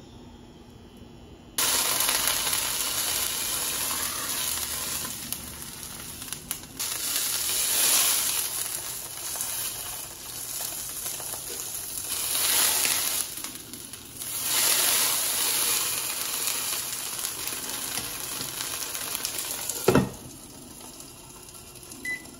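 Food sizzling in a hot frying pan, starting suddenly about two seconds in and swelling and easing several times, then stopping with a knock near the end.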